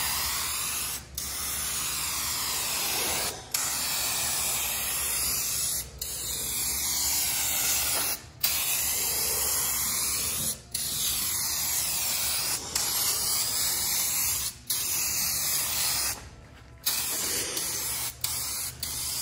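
Rust-Oleum Turbo aerosol spray-paint can spraying in long hissing passes, with short breaks about every two seconds as the nozzle is let go between strokes.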